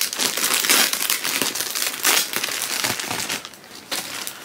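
A clear plastic bag of yarn skeins crinkling as it is handled. The crackling is dense for about three seconds, then quieter near the end.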